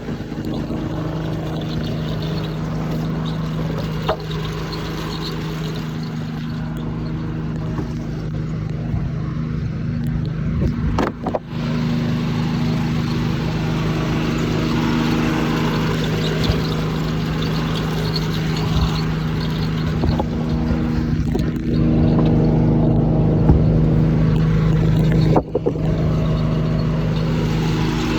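Detroit Diesel 6-71 two-stroke inline-six powering the sawmill, running steadily with a constant drone, heard from inside an overall pocket.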